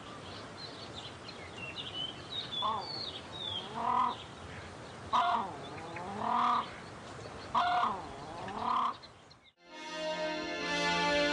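Crested grebes calling: a series of loud, rising-and-falling calls about once a second in the second half, with higher twittering chirps in the first half. Music comes in near the end.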